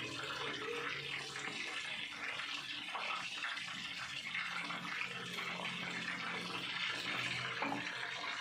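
Taro drink being poured from a cup through a mesh strainer bag into a plastic jug, the liquid running and splashing steadily.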